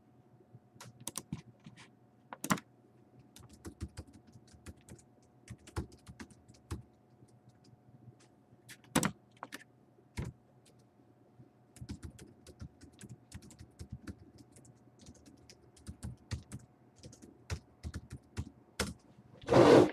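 Computer keyboard typing in irregular short runs of clicks, with a faint steady hum underneath and a louder noise right at the end.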